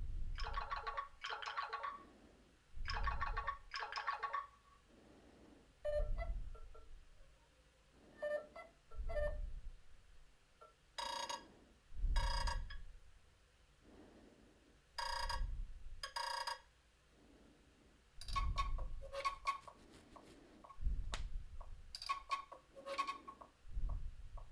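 Nothing Phone 2 ringtones previewed one after another, about six different ones, each a few seconds of electronic tones in two or three repeated pulses, stopped after a short pause before the next starts.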